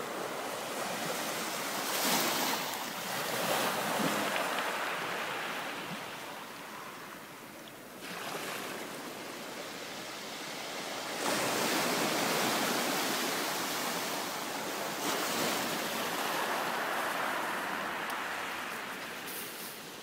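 Small sea waves washing in and out over a shingle beach, picked up with hydrophones: a hissing wash that swells and fades every few seconds as each wave comes in and drains back.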